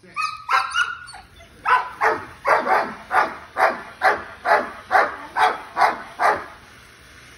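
Dog barking in a steady run of about a dozen barks, two to three a second, after a short spell of higher-pitched yelps in the first second.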